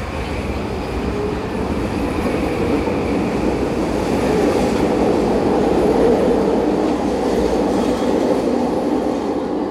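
SkyTrain Expo Line train driven by linear induction motors pulling out of an underground station platform. Its running noise swells as the cars pass close by, peaks about six seconds in, then starts to fade as the train leaves.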